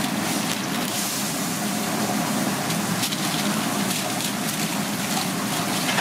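Steady hiss of a busy fast-food kitchen, like griddle or fryer sizzle, with aluminium foil crinkling as a burger is wrapped by hand.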